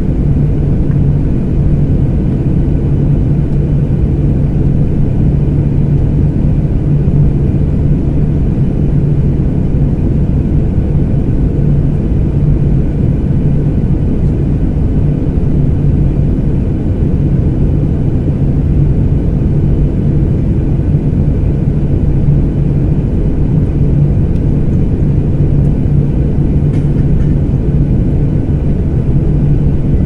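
Airplane engine noise: a steady low drone with a constant low hum in it, holding the same level with no rise or fall.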